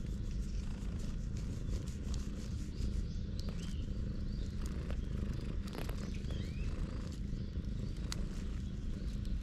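Cat purring steadily close up while being stroked, with scattered light crackles of dry leaves under it.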